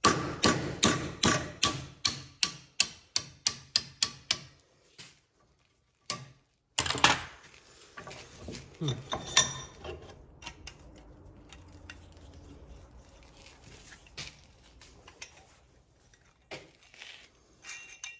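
Hammer striking a metal part in a quick run of sharp blows, about four a second for four seconds. A few heavier single knocks and metallic clinks of parts being handled follow.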